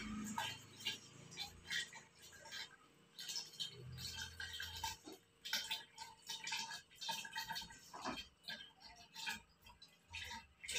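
Kangen water from an Enagic Leveluk Jr II ionizer's outlet hose trickling and splashing into a plastic gallon bottle as it fills, an irregular patter over a steady faint hum.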